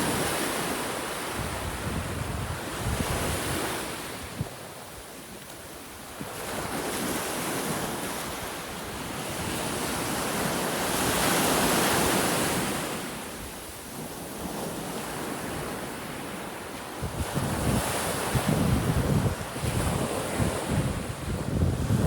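Sea waves washing in and drawing back, the surf swelling and fading every few seconds, with wind buffeting the microphone, gusting hardest near the end.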